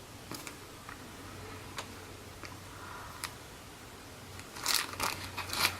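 Packaging being handled during an unboxing: a few light clicks and taps, then a short burst of crisp crinkling near the end.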